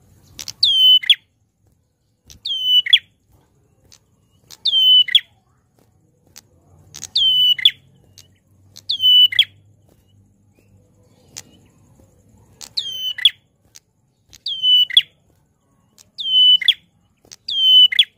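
A caged Prenjak Klawu, a rufous-headed grey tailorbird, calling loudly and repeatedly. Nine sharp, falling notes come about two seconds apart, with a longer pause near the middle.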